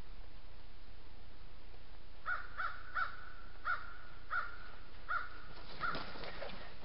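A bird calling: about seven short, harsh calls of the same pitch, starting about two seconds in and spaced roughly half a second apart, then a quicker flurry of lower calls near the end.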